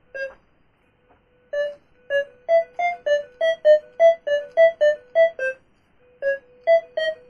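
Berkut 5 metal detector giving rapid short electronic beeps, about three a second and shifting a little in pitch, over a faint steady threshold tone. The beeps come in runs with brief gaps as the coil passes over metal junk in the rubble.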